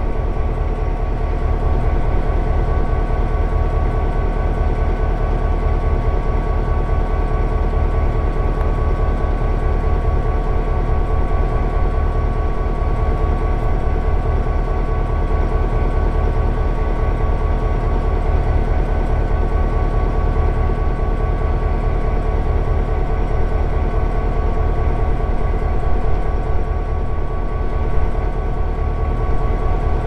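CSX GP38-2 diesel-electric locomotive's EMD 16-cylinder 645 two-stroke diesel idling, a steady low throb with a thin steady whine above it.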